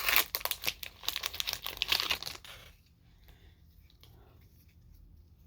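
Foil wrapper of a Pokémon TCG Shining Fates booster pack being torn open and crinkled by hand, stopping about two and a half seconds in.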